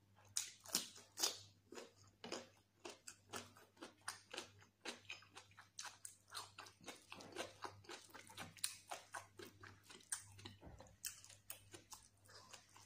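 Close-miked biting and chewing of crisp food, raw cucumber slices and fried fish: an irregular run of short, sharp crunches and wet mouth sounds, several a second.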